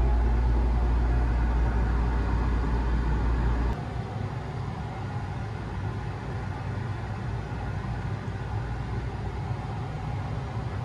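Steady rumble and hiss inside a ferris wheel's enclosed gondola. A strong deep rumble cuts off suddenly about four seconds in, leaving a lighter, even hum.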